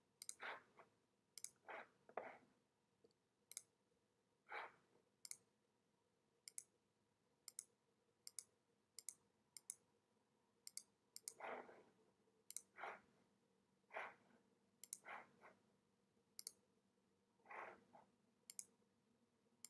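Quiet, irregular clicking of a computer pointing device as it is used to work the software, about one or two sharp clicks a second, with a few softer, duller sounds in between.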